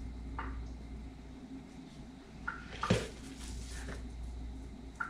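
Raw ground-meat meatballs being rolled by hand and set into a frying pan: faint wet handling noises and one sharp knock about three seconds in, over a steady low hum.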